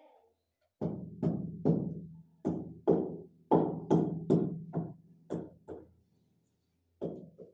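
Ceramic wall tile being tapped into its mortar bed with a hand-held tool, about a dozen sharp, irregular knocks, each ringing briefly. The knocks pause a second or so near the end, then one more comes.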